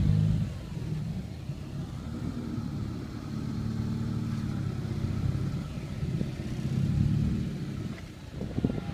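Suzuki Samurai's engine revving under load as it crawls up a steep sandstone crack, rising and easing off in several swells.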